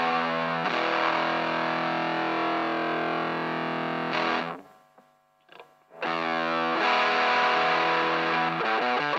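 Electric guitar played through a Danelectro Chicken Salad vibrato pedal and fuzz into an Electro-Harmonix Dirt Road Special transistor amp. A held, distorted chord rings and dies away a little before the middle, there is a second or so of near silence, then a chord rings again and more notes follow near the end.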